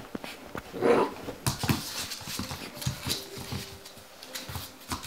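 English bull terrier puppy barking once about a second in, then its claws clicking and paws thudding on a wooden floor as it jumps down and scampers about.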